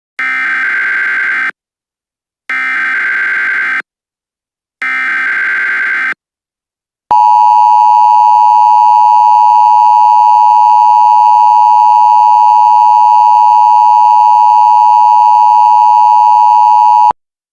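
Emergency Alert System signal: three short bursts of the digital SAME header data tones, about a second apart, then the steady two-tone attention signal held for about ten seconds before cutting off sharply.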